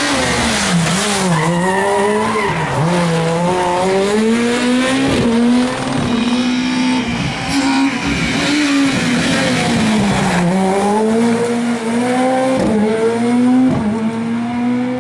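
Rally car engine revving hard through the gears, its pitch dropping under braking twice early on and again about ten seconds in, then climbing in steps as it accelerates away, with a couple of sharp cracks near the end.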